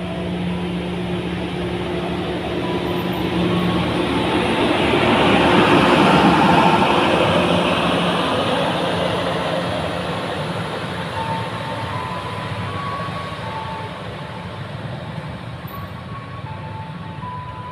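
Train power car's diesel generator running with a steady hum as the slowly moving train passes close by, together with the rolling noise of the train's wheels. It grows louder to a peak about six seconds in, then fades as the train moves away.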